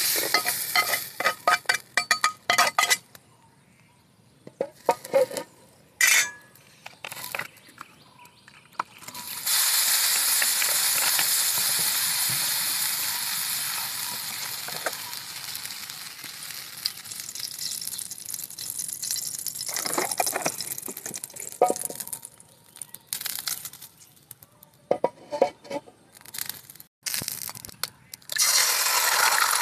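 A metal spatula scrapes and clinks against a black iron frying pan and a steel plate as fried vegetables are tipped out, followed by scattered taps. About a third of the way in, hot oil in the pan starts sizzling loudly all at once and slowly dies down; near the end the sizzle flares up again as eggs go into the hot oil.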